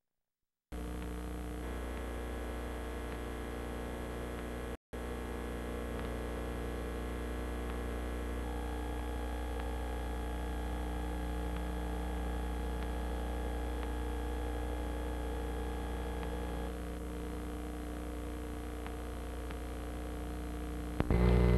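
Steady electrical hum and buzz from a VHS tape's audio track playing back, made of several steady tones at once. It cuts in under a second in after dead silence and drops out briefly about five seconds in. A louder sound cuts in just before the end.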